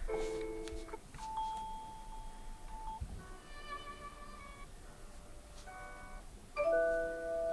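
Samsung Galaxy A34 default ringtone playing: a short electronic melody of bell-like chime notes and held tones, with a louder chord near the end.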